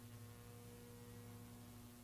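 Near silence: a faint, steady electrical mains hum under a soft hiss.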